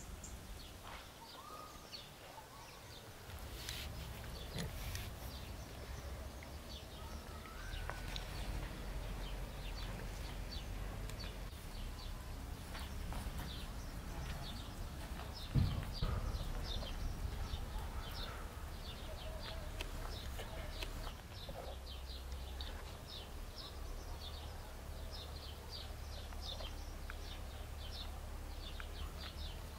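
Outdoor ambience of small birds chirping in quick, repeated short notes over a low steady rumble, with a single thump about halfway through.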